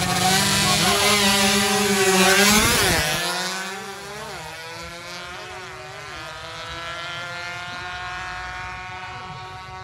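A 116cc underbone drag motorcycle revving hard and accelerating away. It is loud for about three seconds, then fainter, its pitch climbing and dropping back several times as it shifts up through the gears.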